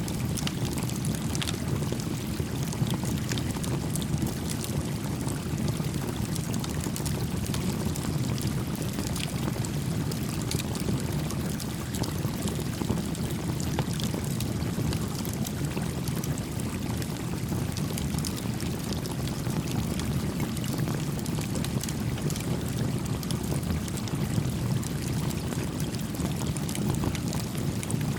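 A small creek flowing steadily, with the scattered light pops and crackles of a small campfire.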